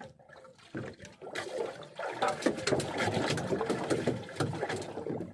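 Water splashing and sloshing with quick knocks and clicks at a small fishing boat. It starts about a second in, runs busily for some three seconds and dies down near the end.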